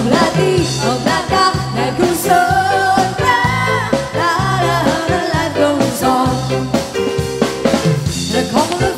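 Live pop band playing an upbeat, bouncing rhythm on drum kit, bass guitar and keyboards, with women singing into microphones.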